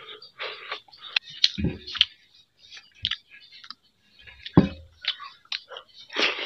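Close-up mouth sounds of a person eating pakhala, watery soaked rice, by hand: wet chewing and lip-smacking clicks. Two dull knocks, one early and one in the second half, and a louder wet slurp near the end.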